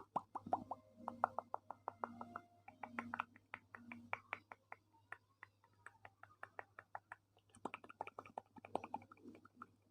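A quick run of soft clicks and taps close to the microphone, several a second. They thin out about halfway through and pick up again near the end, with a few short low hums in the first half.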